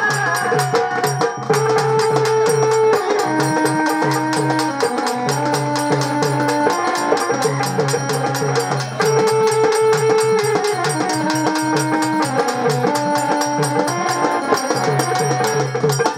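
Marathi folk music: a fast, steady percussion beat under a melody of long held notes on an instrument, with no singing.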